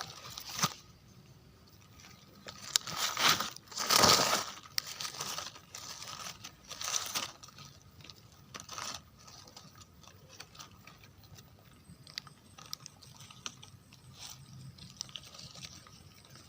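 Dry leaf litter and undergrowth rustling and crunching in irregular bursts as someone moves and forages through it, loudest about three to four seconds in, then fainter scattered crackles.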